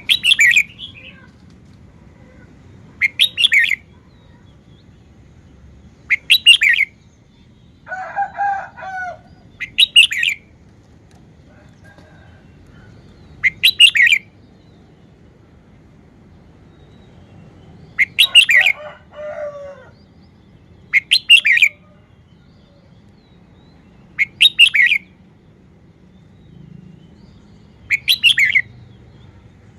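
Red-whiskered bulbul singing short, loud, bright song phrases, one about every three to four seconds, nine in all. Twice, a lower, longer call sounds between the phrases.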